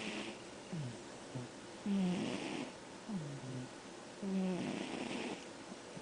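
A sleeping pet snoring in slow, even breaths. A low snore with a breathy hiss comes about every two and a half seconds, with softer, lower sounds between them.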